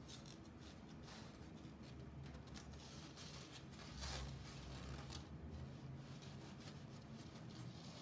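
Faint rustling and scratching of paper and wire being handled as a cut-out shadow puppet is moved behind a paper screen, with a louder rustle about halfway through.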